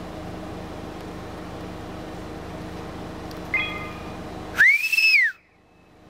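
A person whistling loudly: a short steady note about three and a half seconds in, then a louder whistle that sweeps up, holds its pitch and falls back, after which the sound cuts out abruptly.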